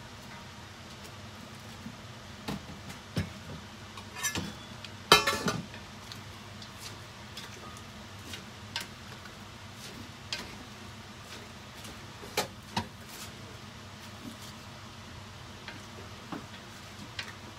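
Wooden spatula stirring shredded cabbage in a stainless steel pot, knocking and scraping against the pot, with a loud clatter about five seconds in. A steady low hiss of the cabbage sautéing runs underneath.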